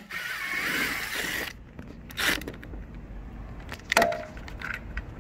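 Ryobi cordless impact driver running for about a second and a half as it backs out a 10 mm headlight mounting bolt, then two sharp knocks from handling the tool and parts.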